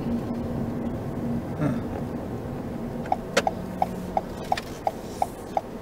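Car turn-signal indicator ticking evenly, about three ticks a second, starting about three seconds in, with a single sharper click as it begins. Underneath runs the steady hum of the car cabin on the move.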